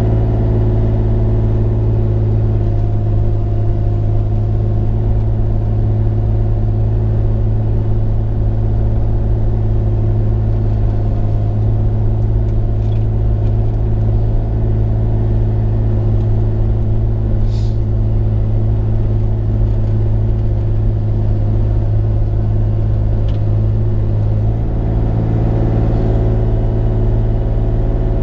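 Bobcat E35i mini excavator's diesel engine running steadily at working throttle, a loud constant hum; the note shifts slightly about three-quarters of the way in.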